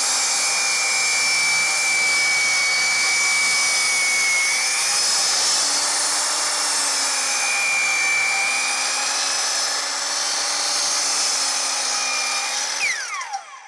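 Kobalt miter saw cutting slowly through the end of a thick glued-up laminated wood tread: a long, steady cut with a high whine over the noise of the blade in the wood. Near the end the motor is released and winds down in a falling whine.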